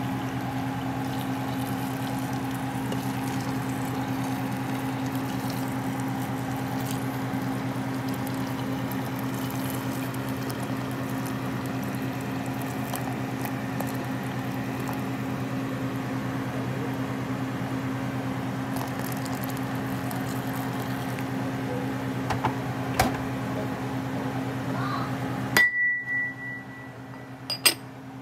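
Tap water running steadily into a ceramic pot over beef and vegetables, with a steady low hum beneath it; the flow stops abruptly about 25 seconds in. Near the end, a couple of sharp clinks as a ceramic lid is set on the pot.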